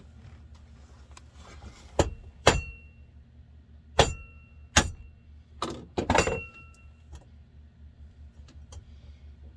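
Metal chainsaw parts and hand tools clinking and knocking on a workbench during crankcase assembly: about seven sharp strikes, several with a short metallic ring. A steady low hum runs underneath.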